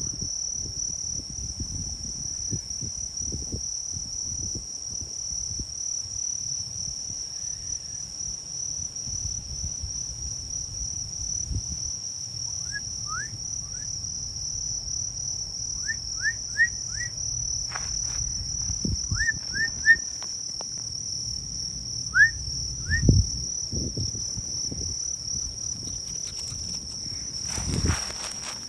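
Night-time insect chorus: a steady, high-pitched, unbroken trill. From about halfway through, a few groups of short rising chirps come in over it, with low rumbling and a few knocks underneath.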